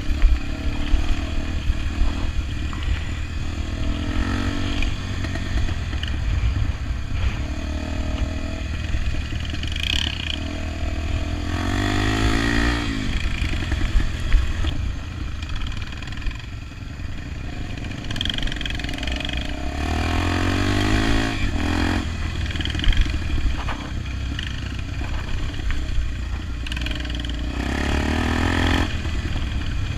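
Honda XR 250 Tornado's single-cylinder four-stroke engine running, revving up and easing off repeatedly. The engine note swells and shifts in pitch several times, most plainly about twelve seconds in and again about twenty seconds in.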